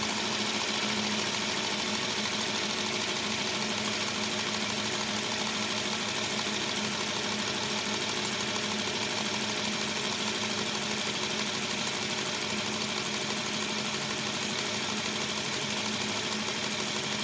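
Aster gauge 1 live-steam model locomotive Lion running steadily on a rolling-road test stand: a fast run of steam exhaust beats with hiss and the clatter of its valve gear and wheels, stepping up just at the start and then holding even.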